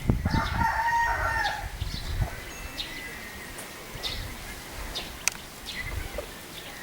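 A rooster crowing once, a held call about a second and a half long, followed by faint scattered clicks and chirps.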